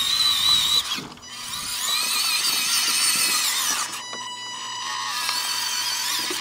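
Electric drive motor and gearbox of a radio-controlled scale Schwimmwagen amphibious car whining as it drives across a wooden deck and climbs a ramp. The pitch rises as it speeds up. The whine stops briefly about a second in and again around four seconds, then picks up again.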